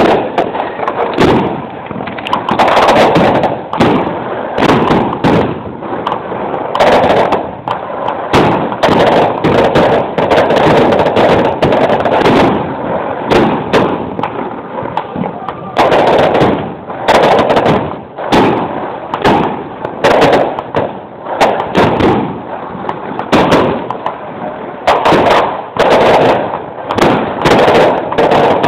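Fireworks going off in a dense barrage, loud, with several bangs a second over a constant crackle.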